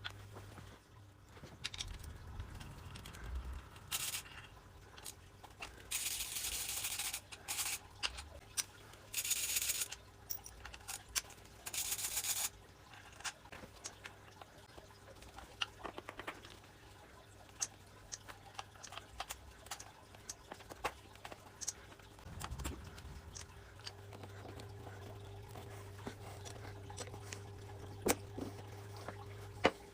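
Hands-on mechanical work on motorcycle clutch hydraulics: scattered clicks and knocks of tools and metal parts being handled, with several short hissy bursts about six to twelve seconds in, over a steady low hum.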